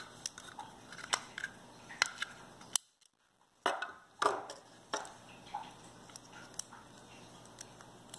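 Small plastic speaker parts and a circuit board being handled on a wooden tabletop: scattered light clicks and taps with a few scraping rustles. The sound drops out briefly about three seconds in.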